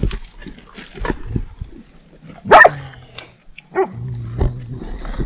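Dog barking, one loud short bark about halfway through and a weaker one a second later.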